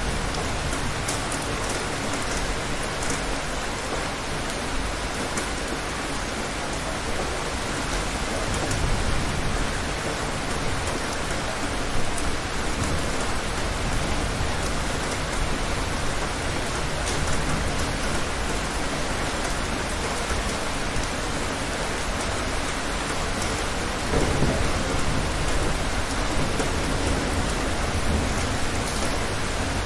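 Steady heavy rain with fine drop patter, over low rolling thunder that swells a few times.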